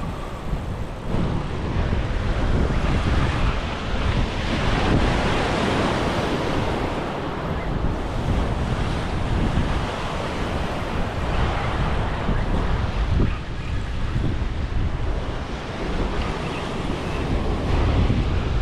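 Sea surf breaking and washing against a rocky shore, rising and falling in swells, with wind rumbling on the microphone.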